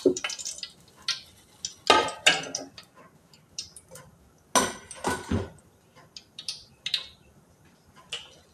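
A metal spoon knocking and clinking against an aluminium cooking pot on the stove: several separate strikes, the loudest cluster about halfway through.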